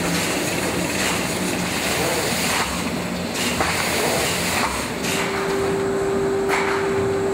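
Polythene bag-making machinery running: a steady hissing mechanical din with a knock roughly every second. A steady hum comes in about five seconds in.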